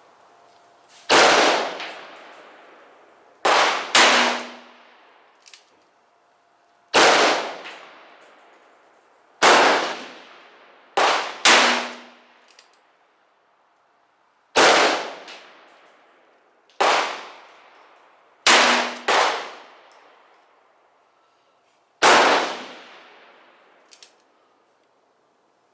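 Gunshots on a shooting range: about a dozen sharp single shots at irregular intervals, some in quick pairs, each trailing off in a long echo. They include .44 Special revolver shots.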